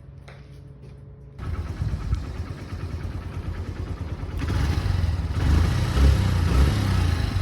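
Honda CB 125F Twister's single-cylinder four-stroke engine running: a faint low steady hum at first, then a sudden jump in loudness about a second and a half in, and louder again about halfway through.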